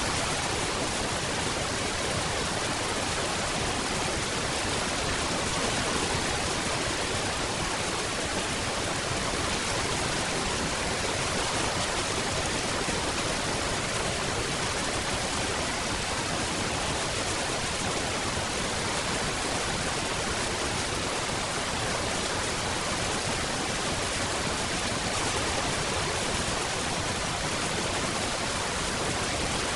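Steady rain falling, an even, unbroken hiss with no separate drops standing out.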